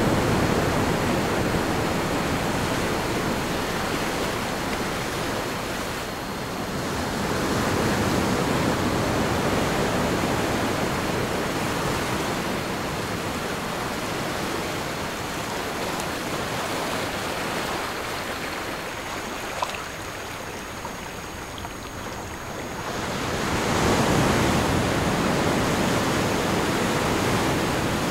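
Recorded ocean surf: waves washing in and swelling and easing every several seconds, with a lull about twenty seconds in before the next wave builds. A faint steady high tone runs underneath and shifts higher about nineteen seconds in.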